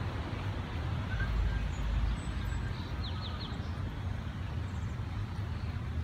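Steady outdoor background noise with a deep rumble, and a few faint, short high chirps about three seconds in.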